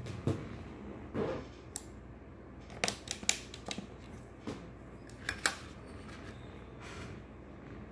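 A string of sharp clicks and taps as small hard objects are picked up and handled, with a quick cluster near the middle and two more shortly after.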